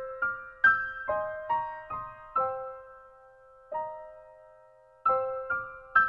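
Background music: a slow, high keyboard melody of single ringing notes. It thins to one lone note in the middle, then picks up again near the end.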